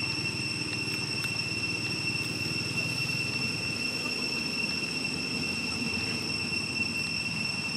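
Steady outdoor ambience: a continuous high-pitched insect drone over a low rumble.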